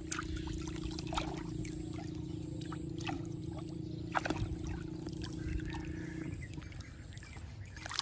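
Otters splashing and paddling through shallow muddy water, with many short sharp splashes and gurgles. Under them runs a steady low hum that stops about six seconds in.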